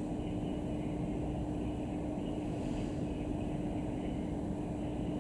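Steady low outdoor rumble with a constant hum, and faint high-pitched pulses coming and going above it.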